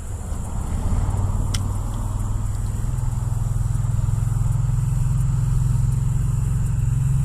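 A motor vehicle's engine running close by. It grows louder over about the first second, then holds a steady low drone.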